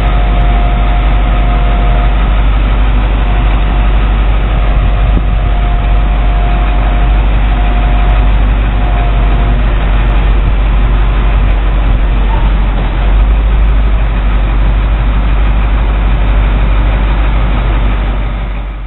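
Navistar 4600 truck's 7.3-litre V8 diesel running at idle, a loud steady low rumble, with a thin steady whine through the first half while the rear container-handling forks are raised. The sound fades out right at the end.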